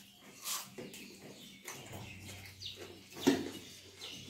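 Two people eating rice and curry by hand: wet chewing and lip smacks with fingers mixing rice on steel plates, heard as scattered short clicks. The loudest sharp sound comes about three seconds in, over a faint steady low hum.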